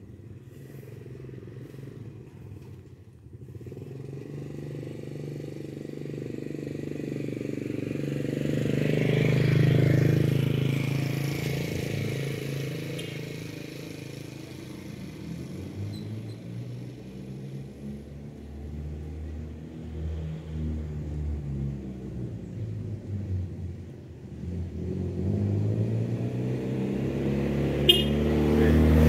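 A motor vehicle engine going by. It grows louder to a peak about ten seconds in and then fades. Near the end a second engine comes closer and revs up, with a sharp click just before.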